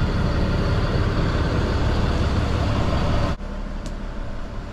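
Fire rescue boat's engines running steadily under way, a loud rumble heard out on the open deck. About three seconds in it cuts abruptly to a quieter engine hum inside the wheelhouse.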